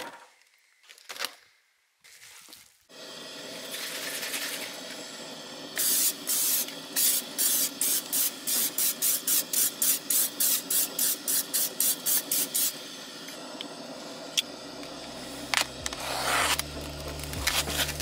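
Meat hissing and sizzling in a hot pan for a stew, with a fast run of sharp scraping strokes, about three a second, through the middle. Background music with a low bass line comes in near the end.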